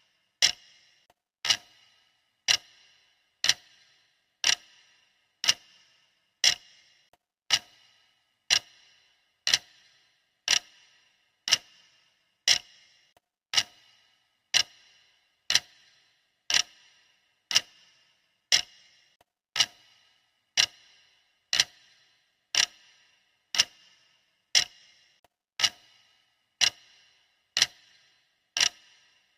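Clock ticking at one sharp tick a second, steady and even, with no alarm.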